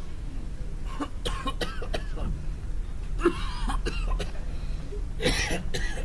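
A person coughing and clearing their throat in several short bursts: a cluster about a second in, a longer one around the middle, and another near the end.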